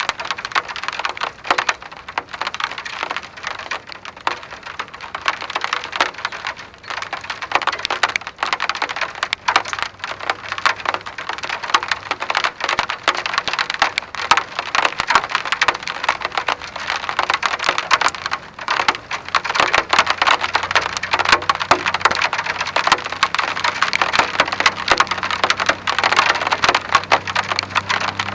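Steady rain, a dense patter of many small drops ticking on a hard surface.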